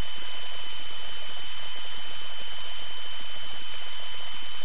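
Steady hiss of an aircraft headset intercom feed, carrying a few thin, high, steady whine tones, with no voice keyed.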